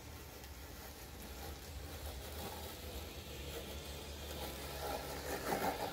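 Remote-controlled lawn mower running: an RC crawler with a 775 cutting motor, salvaged from a cordless drill, spinning 3D-printed blades. It makes a steady low hum that grows louder as the mower comes near, with a louder, rougher stretch about five and a half seconds in.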